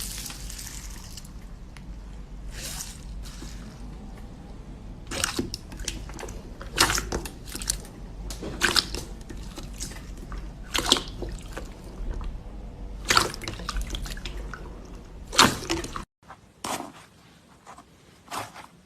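Slime being squeezed and worked by hand, making wet squelches and pops at irregular intervals over a low steady hum.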